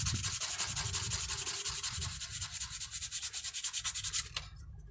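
Sandpaper rubbed rapidly back and forth over the sealing face of a Mercedes-Benz Actros diesel feed pump, to level an uneven surface where a worn washer let diesel leak back. The strokes stop about four seconds in.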